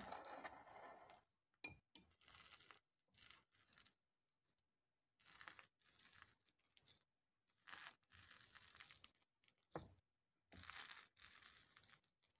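Fork stirring and kneading sticky emmer sourdough in a glass bowl: faint wet tearing strokes in short bursts with pauses between them, and a couple of sharp clicks, about two seconds in and near the end.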